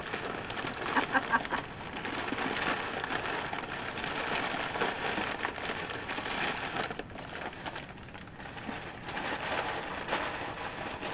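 Packing material being pulled away from a package by hand: continuous rustling and crinkling with small crackles and clicks.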